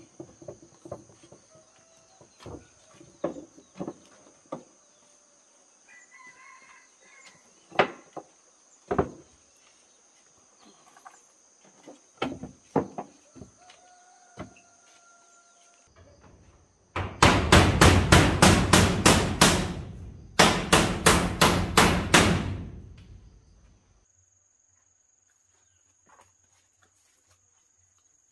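Scattered light knocks, a few chicken clucks and a steady high insect drone, then a fast run of loud hammer blows at about four a second in two bursts past the middle. The hammering stops abruptly.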